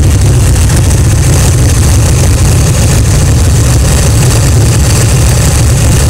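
Kawasaki Vulcan 1500's V-twin engine running at low speed as the motorcycle rolls slowly and turns, a steady, loud, low engine sound heard from a camera mounted on the bike.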